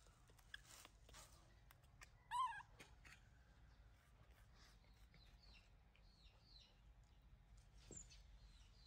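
Mostly near silence, broken about two seconds in by one short, warbling animal call, with faint high chirps later on.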